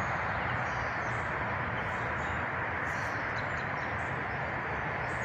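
Steady outdoor background hiss with a few faint, short bird chirps over it.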